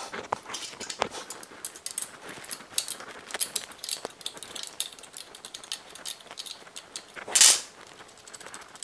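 Hand tools working the bolts of a pump case: irregular small metal clicks and clinks from an Allen key and wrench on the screws and nuts. A brief louder scrape about seven and a half seconds in.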